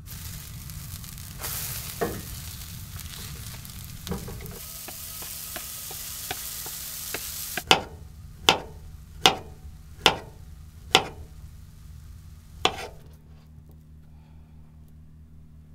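Pancake batter sizzling in a hot cast iron skillet, a steady hiss with a couple of soft knocks, cut off suddenly about seven and a half seconds in. Then six sharp knocks, about one a second, of a knife cutting through a banana onto the wooden countertop.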